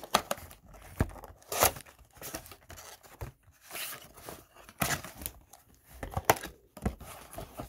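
Cardboard blaster box of trading cards being pried and torn open by hand: a series of short, irregular rips and scrapes of the paperboard flaps.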